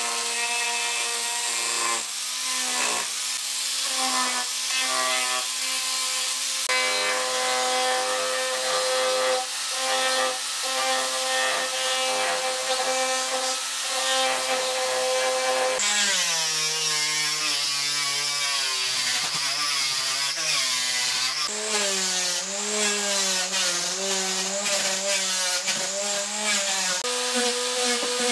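Electric angle grinder with a sanding attachment running and sanding mango wood, its motor whine steady with a rasp of abrasive on wood. About halfway through the whine dips in pitch and wavers for several seconds, then rises again.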